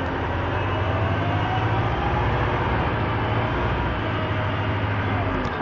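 A 1999 Orion V transit bus under way, heard from inside the passenger cabin: a steady low engine drone with road noise, and a faint whine that rises in pitch in the first half.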